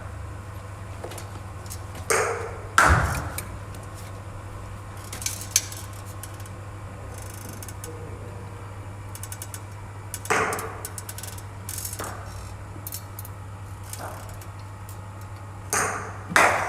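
Cricket balls fired from a bowling machine and struck with a bat: a few sharp knocks with a ringing tail, a pair about two to three seconds in, another about ten seconds in and a pair near the end, over a steady low hum.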